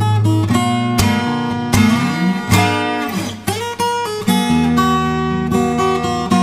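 Background music: a strummed acoustic guitar tune, with chord changes about every second.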